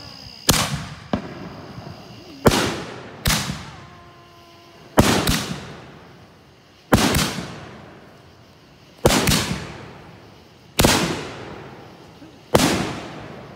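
4-inch aerial canister shells fired in quick succession: about ten sharp reports, the loudest coming roughly every two seconds, each trailing off in a long echoing decay.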